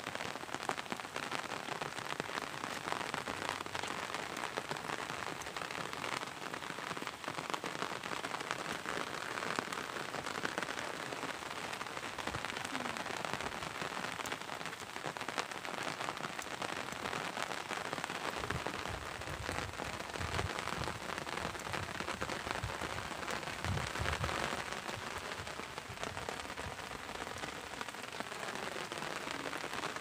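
Steady rain falling, a dense patter of drops, with a stretch of low rumbling about two-thirds of the way through.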